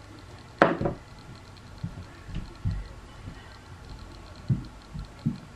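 Quiet handling of makeup products: one sharp click about half a second in, then a few soft, light taps while foundation is worked between the fingers.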